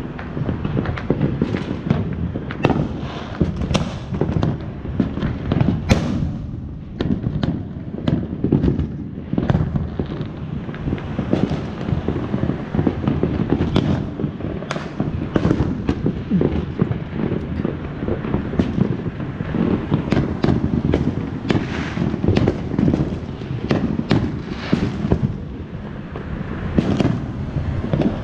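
Fireworks going off without a break: a dense run of sharp pops and bangs, several a second, over a constant low rumble.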